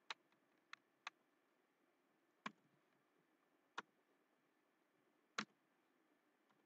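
Six sharp single keystrokes on a computer keyboard, spaced irregularly about half a second to a second and a half apart, over near silence.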